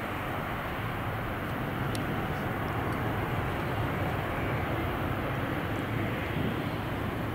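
Airbus A350-900's twin Rolls-Royce Trent XWB turbofans at takeoff thrust, heard from the ground as a steady, deep jet rumble while the airliner climbs out.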